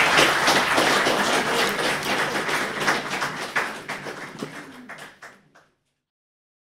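Audience applauding, the clapping thinning out to a few scattered last claps before cutting off suddenly about five and a half seconds in.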